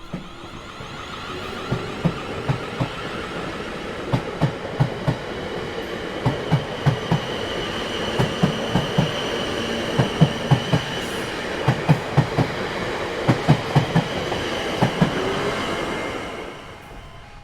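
Train rolling past over rail joints: the wheels knock in a rhythmic clickety-clack, in groups of two and four, over a steady rumble and a high wheel squeal. It fades out near the end.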